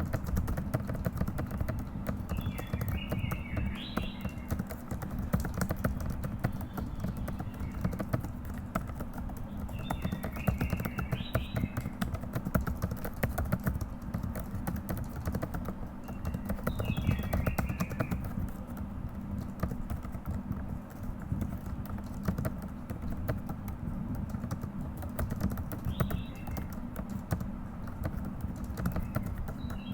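Continuous fast typing on a computer keyboard: a dense, steady run of key clicks. A few short high chirps come through every six or seven seconds.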